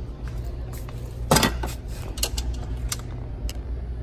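Pet feeding bowls being handled: a short, loud scrape about a second and a half in, then a few light knocks and clicks.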